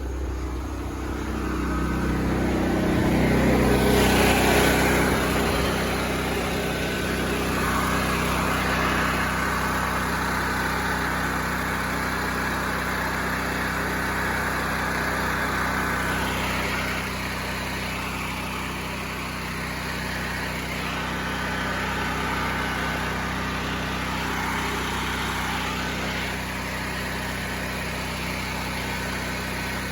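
Small portable generator engine running at a steady speed, its carburetor cleaned and its pilot jet opened up to 18 thousandths so that it no longer hunts. It grows louder a few seconds in, then holds steady.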